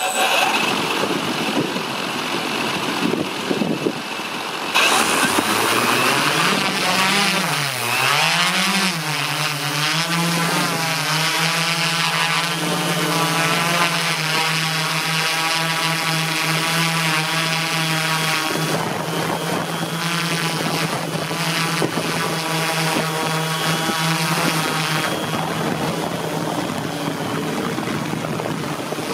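Align M480L multicopter's electric motors and propellers spinning up about five seconds in, their pitch wavering as it lifts off, then settling into a steady hum as it hovers. A rushing wind noise on the microphone fills the first few seconds.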